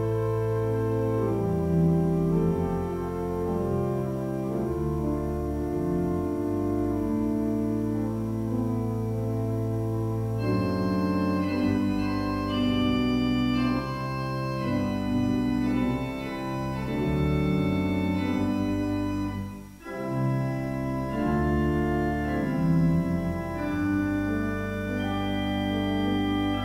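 Church organ playing slow, sustained chords with deep pedal notes underneath, the harmony changing every second or two; a brief pause between phrases about twenty seconds in.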